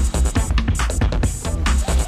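Electronic dance music with a steady beat and heavy bass.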